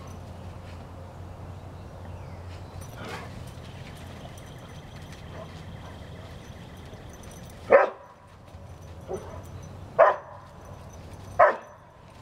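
A dog barking in play: three loud single barks in the last four seconds, about a second and a half apart, with a fainter one between the first two.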